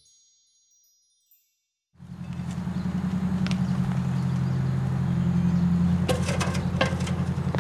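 Silence for about two seconds, then a steady low hum from an idling engine starts abruptly and runs on, with scattered sharp ticks that come more often near the end.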